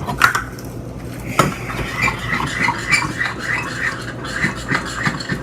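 A utensil stirring and clinking in a bowl while slime is mixed, with a couple of sharp clicks near the start and then a run of small irregular scrapes.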